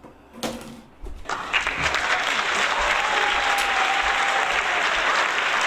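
Crowd applause played as a canned sound effect. It starts about a second in and cuts off suddenly.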